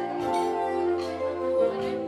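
Saxophone playing a slow melody of held notes.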